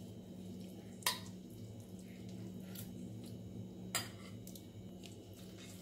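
Thin seasoning gravy pouring and dripping from a small pan onto cooked rice in a steel bowl, with soft wet drips and two sharp clicks, about a second in and near four seconds in.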